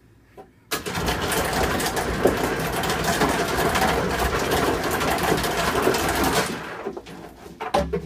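Hotel ice machine dispensing ice: the dispenser runs and ice cubes clatter out of the chute. It starts suddenly under a second in and stops after about six seconds.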